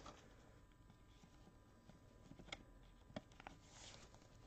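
Near silence, with a few faint clicks and a soft rustle of a trading card in a plastic holder being handled.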